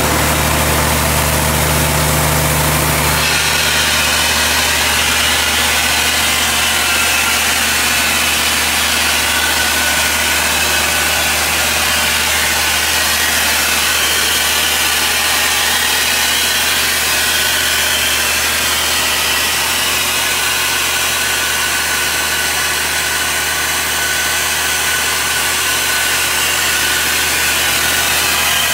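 Engine of a 1994 Ingersoll-Rand T3W water-well drill rig running steadily at idle during a test run.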